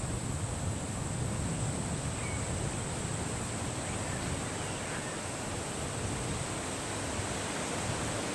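Steady outdoor noise with a constant high-pitched hum and a few faint, short bird chirps scattered through it.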